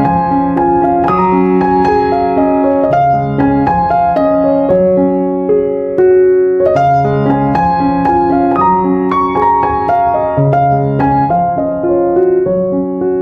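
Background piano music: a melody of struck, ringing notes over a lower line of notes that changes about once a second.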